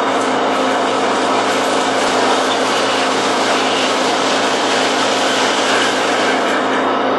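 Lionel O-gauge model train set giving off a steady, even whirr and hiss over a low hum, with no clicks or breaks.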